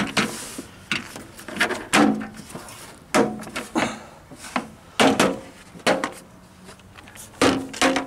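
Plastic Christmas tree clips popping out one after another as a hard plastic Jeep Wrangler YJ half-door panel is pried off with a plastic trim tool: a string of sharp snaps and knocks at irregular intervals, with the panel rattling against the door.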